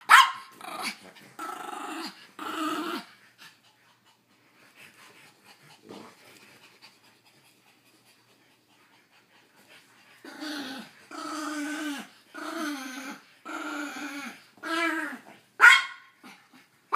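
Small dogs (a French bulldog and a Maltese) growling during rough play-fighting, in short snarling bursts with a sharp higher cry at the start and another near the end. There is a quiet pause of several seconds in the middle.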